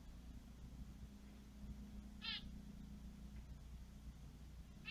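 Short, high, nasal animal calls: one about two seconds in and another at the very end, over a steady low hum.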